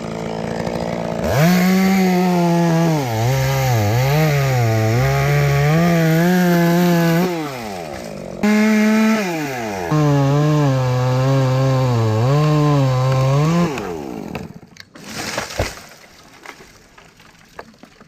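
Chainsaw cutting through a limb of a dead elm, revved up twice in long stretches with the engine pitch sagging and wavering under the load of the cut, dropping back to idle in between. The saw falls away about three-quarters of the way in, followed by a few sharp knocks.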